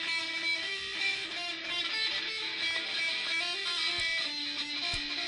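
Guitar, most likely electric, playing a riff of quickly changing single notes.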